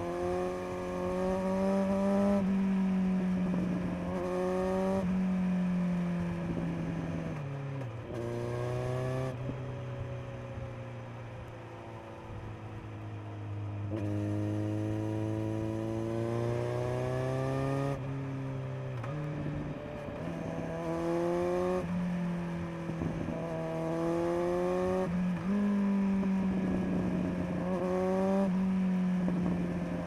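Kawasaki Z900 inline-four engine through a LeoVince LV10 Carbon slip-on exhaust, accelerating through the gears: the note climbs and drops sharply at each upshift. Near the middle it eases to a lower, slowly falling note for several seconds, then climbs through the gears again.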